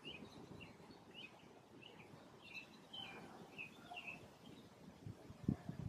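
Faint series of short, high bird chirps, about two a second, that fade out after about four seconds; a few low bumps come near the end.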